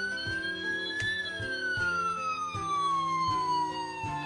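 Electronic siren of a Fireman Sam toy ambulance wailing: one slow rise in pitch, then a long fall, over background music.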